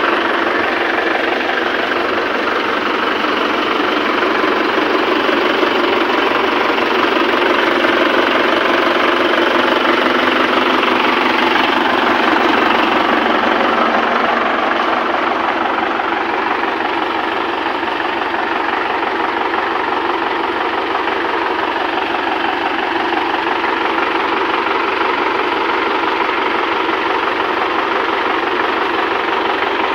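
Mahindra 595 DI tractor's four-cylinder diesel engine idling steadily, with a diesel knock.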